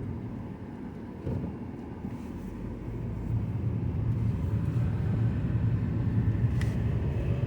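Road and engine noise inside the cabin of a 2009 Mazda 5 under way in fourth gear: a steady low rumble that grows louder from about three seconds in. A single light click near the end.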